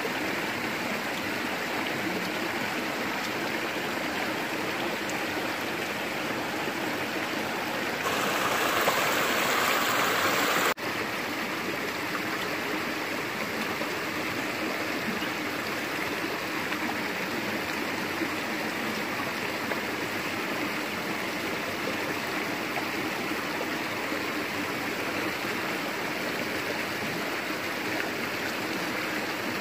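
Steady rushing of a rocky jungle stream, with a louder, brighter stretch of about three seconds a third of the way in that cuts off abruptly.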